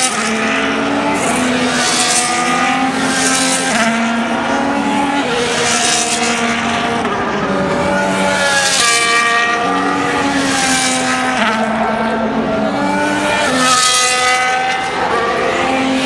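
Formula 1 cars' turbocharged 1.6-litre V6 engines passing one after another, loud and high-pitched. Their pitch steps as they shift gear, with a rush of noise as each car goes by.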